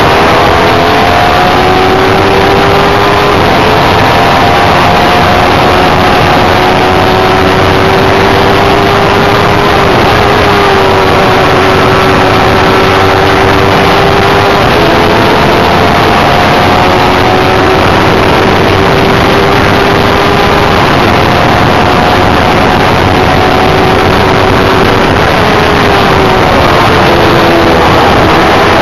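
Formula Predators single-seater racing car's engine running hard at high revs, heard loud and close from a camera mounted on the car; its pitch holds nearly steady with a few small dips and rises, over a constant rush of wind and road noise.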